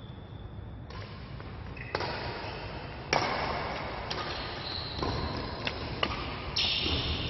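Badminton rally: rackets strike the shuttlecock in a string of sharp hits about a second apart, starting about two seconds in. Short high squeaks of players' shoes on the court floor sound among the hits.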